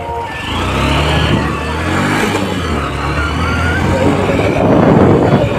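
Small motorbike engine pulling away and running as the bike rides along, with wind rush growing louder near the end.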